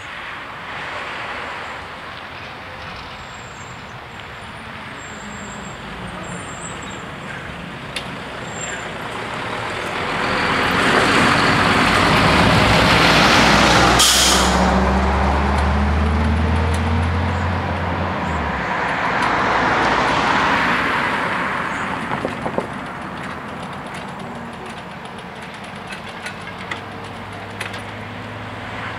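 A heavy tipper semi-trailer truck drives past close by, its engine and tyres building to a loud peak in the middle, with a short sharp hiss of air from its brakes. The low engine drone fades a few seconds later, and a second, quieter vehicle passes after it.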